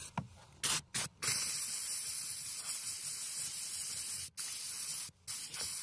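Karcher SC2 steam cleaner's trigger gun hissing as it jets steam through a small nozzle brush. There are two short puffs about a second in, then a long steady hiss that cuts out briefly twice in the last two seconds.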